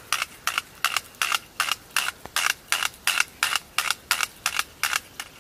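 Cheap spinning reel crackling as its handle is cranked, a sharp click about three times a second in a steady rhythm. The reel is already beginning to rattle.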